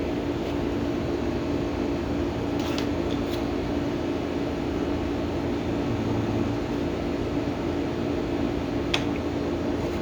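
A steady mechanical hum, like a running fan, with a couple of faint light clicks.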